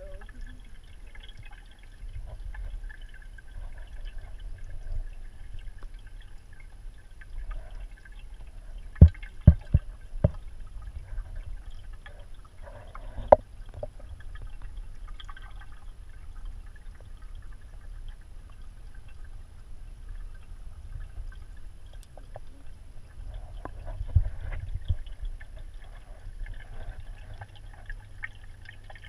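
Water moving in a marine aquarium, with a steady low hum under it. A few sharp knocks come about nine to ten seconds in and once more a little later.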